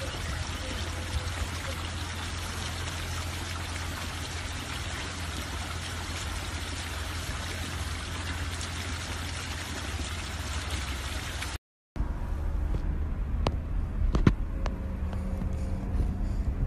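Steady rushing noise of running water at a stony garden fish pond. It cuts off abruptly about eleven and a half seconds in, and a quieter stretch with a few sharp clicks follows.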